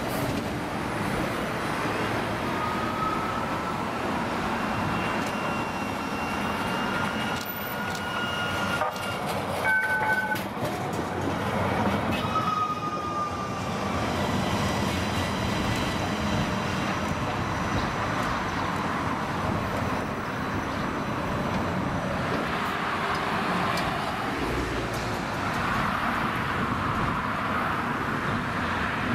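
Electric streetcar running on a city street among steady road traffic, with several drawn-out high squeals in the first half.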